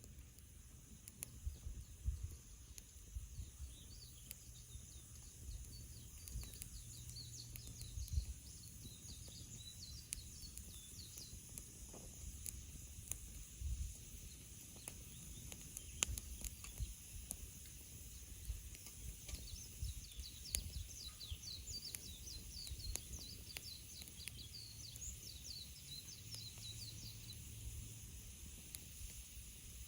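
Small birds twittering in fast series of high chirps, in two long spells, over the scattered sharp crackles and pops of a wood campfire and a low rumble.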